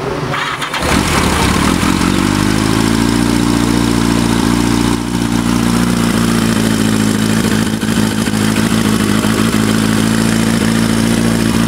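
A 1980 Yamaha XJ650's inline-four engine cold-starting. It catches about a second in, its revs rise a little, and then it idles steadily. It is a carburetted engine that is slow to start in the cold.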